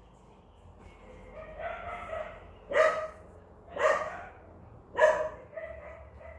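A black dog barking three times, about a second apart, with softer whining sounds before and after the barks.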